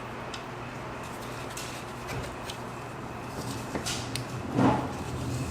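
Light clicks and taps of laptop parts and screws being handled during disassembly, with a short louder rustle about four and a half seconds in, over a steady low electrical hum.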